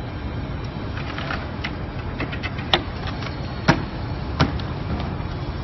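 Scattered sharp clicks and knocks from wooden dance-floor panels being handled, set down and fitted together on concrete, the loudest knock a little past halfway, over a steady low rumble.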